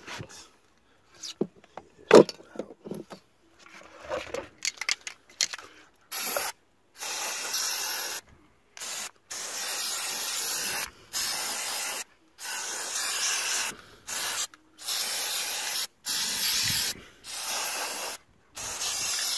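Aerosol can of corrosion-protection spray hissing in about ten short bursts onto an outboard's starter motor, starting about six seconds in. Before that come a few clicks and knocks from handling the can.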